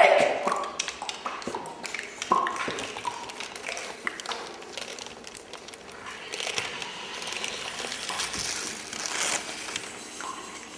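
Sparse clicks, taps and rustling noises with a few short soft tones: a quiet, noisy passage of a contemporary chamber-music stage performance.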